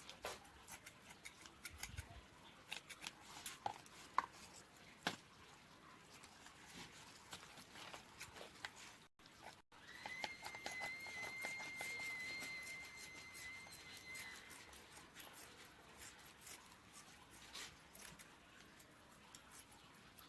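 Scissors snipping through netting, a scatter of small sharp cuts and clicks. About ten seconds in, a steady high tone sounds for about four and a half seconds, then stops.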